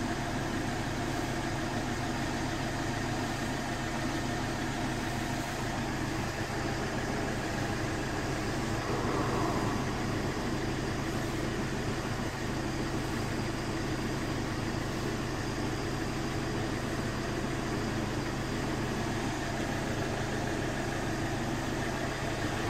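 Steady, unchanging mechanical hum with a low drone, like a motor running at idle.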